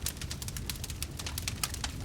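Wood fire crackling: many sharp, irregular pops and snaps, several to the second, over a low steady rumble of the flames.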